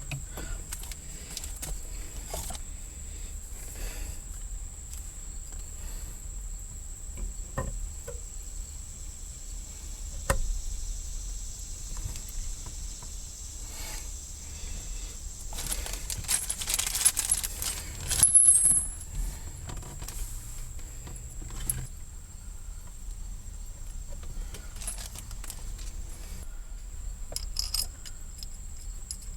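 Light metallic clinks and clicks of small parts and hand tools being handled, scattered irregularly, with a louder clatter and ringing a little past halfway.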